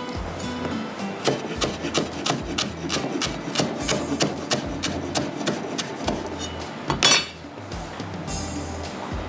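Knife chopping fresh coriander on a wooden cutting board: quick, even strikes of the blade on the wood, about three to four a second. About seven seconds in there is a louder knock, then a short scrape.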